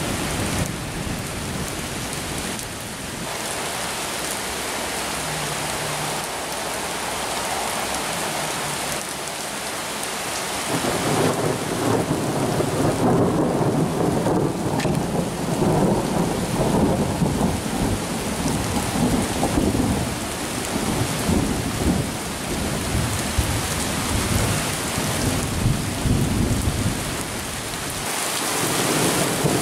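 Steady rain falling during a thunderstorm, with a long rumble of thunder that begins about ten seconds in and carries on for several seconds, and another swelling near the end.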